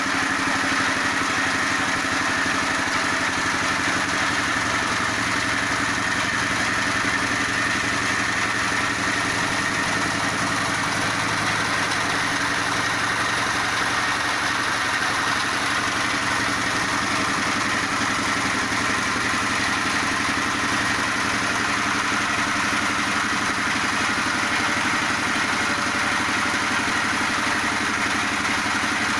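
Feed pellet machine running steadily with a constant engine-like drone and no change in pace.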